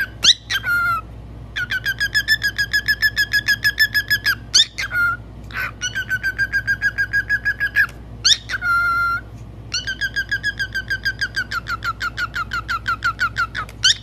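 Cockatiel whistling: a quick rising whistle, then long runs of rapid repeated chirping notes, about six a second, with the pattern repeating three times.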